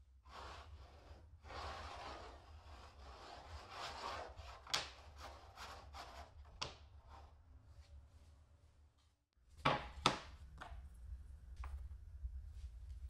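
Wood being rubbed and scraped by hand, with scattered sharp clicks, then after a brief break two loud knocks in quick succession and a few lighter taps.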